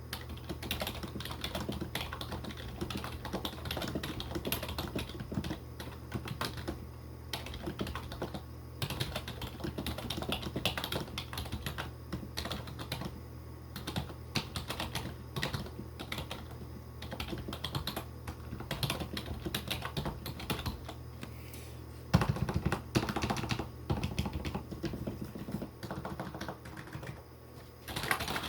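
Typing on an unplugged IBM membrane keyboard: a fast, continuous run of soft key presses, with a louder flurry of keystrokes about three-quarters of the way through.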